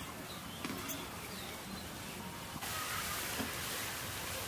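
Potato snacks deep-frying in hot oil in a frying pan: a steady sizzle that gets louder about two and a half seconds in, with a few faint ticks.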